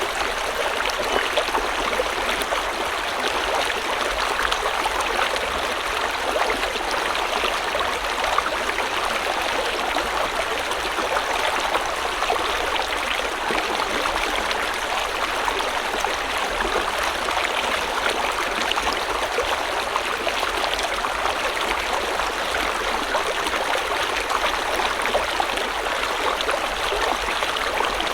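Stream water flowing steadily over rocks: a continuous rushing and babbling with fine splashing detail and no pauses.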